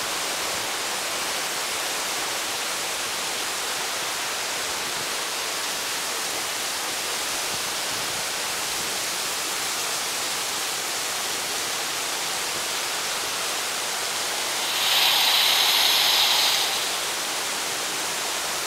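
Underground waterfall in a mine tunnel: a steady rush of falling water and spray that swells louder for about two seconds near the end.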